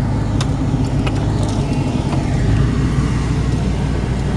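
Chevy OBS pickup's engine running steadily through a glass-pack exhaust with echo tips, heard from inside the cab while driving a muddy trail, with a few short knocks and rattles from the truck.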